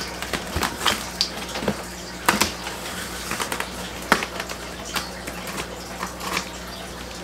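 Razor blade slicing the packing tape along a cardboard box's seam and the cardboard flaps being pulled apart: irregular scratchy crackles and clicks of blade, tape and cardboard.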